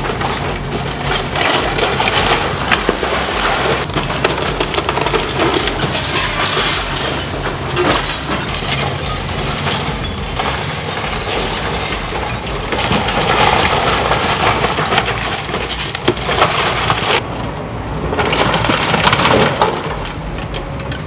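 A wooden building being demolished by a heavy machine: continuous crunching and splintering of timber, breaking glass and repeated cracks and crashes over a steady diesel engine.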